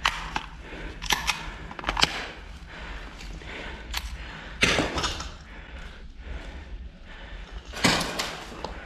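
Airsoft guns firing single shots: sharp clacks at irregular spacing, with two louder, longer bangs about five and eight seconds in.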